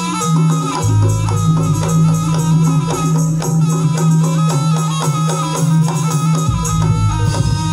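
Live jaranan music from an East Javanese ensemble: drums and percussion keep a steady, busy rhythm under a held, high melody line and a low sustained drone.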